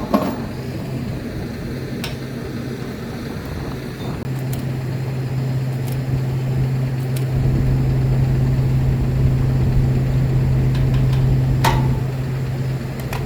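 Steady mechanical hum at a fuel pump, growing stronger about four seconds in and joined by a deeper low rumble about seven seconds in, with a few light clicks.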